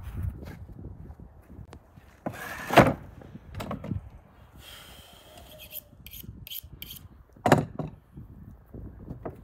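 Raw beef hooves and their tray being handled on a wooden plank table: a few sharp knocks, the loudest about three seconds in and another near the end, with scraping and rubbing between.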